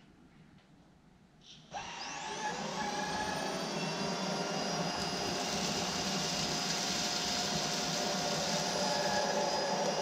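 Roidmi cordless stick vacuum switched on just under two seconds in, its motor spinning up with a rising whine and then running steadily as its soft roller brush head is pushed over a low-pile rug, sucking up scattered dirt.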